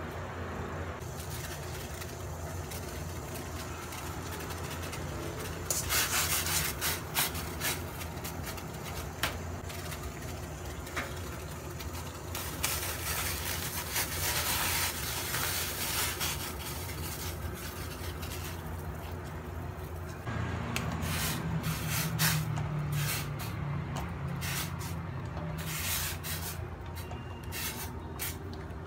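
A steady low hum and hiss under a stainless steel pot of water heating on the stove. Around halfway there is a louder rush of splashing as sweet-potato dough balls are tipped into the water. In the last third comes a run of clicks and scrapes as a plastic paddle stirs the balls against the pot.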